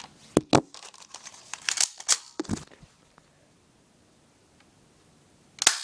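Handling an unloaded airsoft Colt 1911 pistol: two sharp clicks about half a second in, some rustling and scraping, then near the end a sharp snap as it is fired with no BBs in it.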